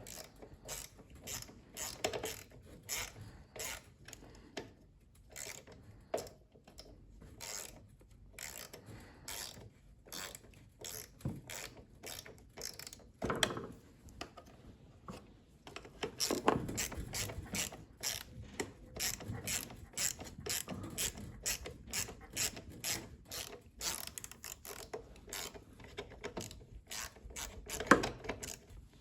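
Hand ratchet wrench clicking in uneven runs of strokes as fasteners on a lawnmower are worked loose, with a few louder knocks of tools or parts being handled.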